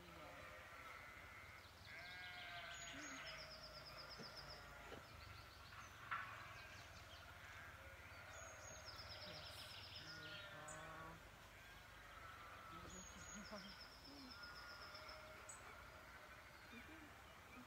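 Faint outdoor animal sounds: wavering, bleat-like calls now and then, and a bird's short rapid trill repeated several times.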